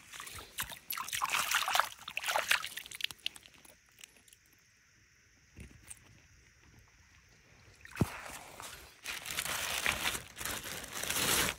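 Rustling and scraping of wet mud and gravel being handled by hand. A quiet stretch follows, then one sharp knock, then more dense rustling near the end, where a plastic bag is being handled.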